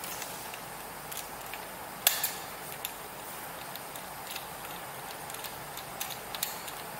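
A few light clicks and knocks from handling a Sanders manual jet ventilator while its pressure dial is turned to half a bar, the loudest about two seconds in, over a steady faint hiss.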